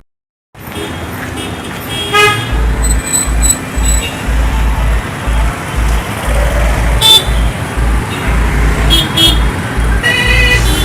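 Busy night-time street traffic with car horns tooting several times, over a deep, rhythmic low thudding that starts about two seconds in. The sound begins after a half-second of silence.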